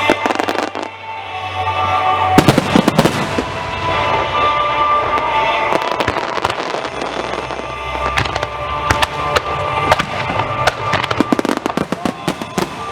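Aerial fireworks display by Marugo: shells bursting with sharp bangs and crackling, over music. The loudest cluster of bangs comes about two and a half seconds in, and dense crackling returns in the second half.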